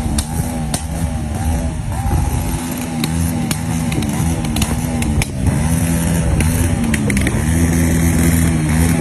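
Bajaj Pulsar 150's single-cylinder four-stroke engine running unevenly, its note dipping roughly twice a second with sharp clicks, the sign of a misfire.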